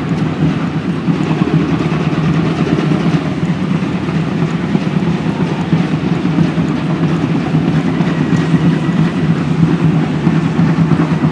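Steady low rumble of road traffic, with a car passing near the end.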